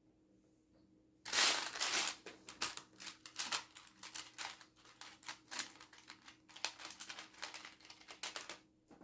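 Loose plastic LEGO pieces clicking and clattering in the hands, a rapid run of small clicks that starts about a second in and goes on until just before the end.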